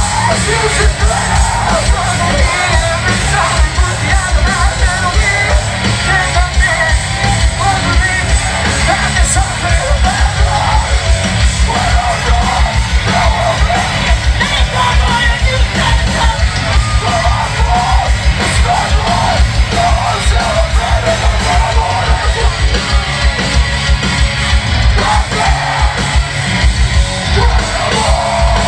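Live metalcore band playing loud: distorted electric guitars, bass and heavy drums under yelled vocals. Recorded from inside the crowd, so it comes across dense and overdriven.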